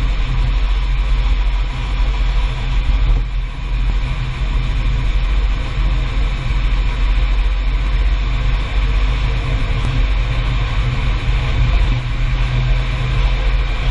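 Car on the move, a steady low rumble of road and running noise, during a test drive for an abnormal chassis noise.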